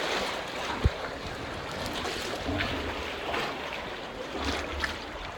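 Canoe paddles splashing and water trickling, with a single sharp low thump about a second in.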